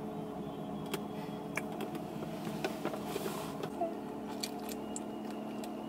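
Steady low hum in a car's cabin, with scattered small clicks and rustles of movement.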